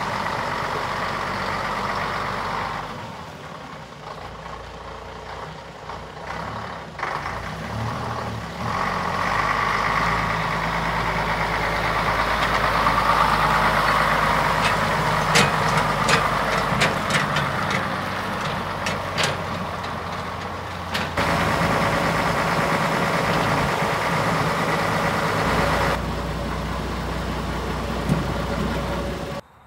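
Scania LS 85 Super truck's diesel engine running, with several shifts in engine level and pitch. It rises to a louder, higher run through the middle, where a cluster of sharp clicks sounds. It runs steady again before cutting off abruptly near the end.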